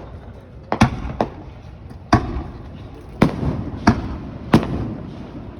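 Aerial fireworks shells bursting overhead: about six sharp booms at uneven intervals, each trailing off in a rumbling echo.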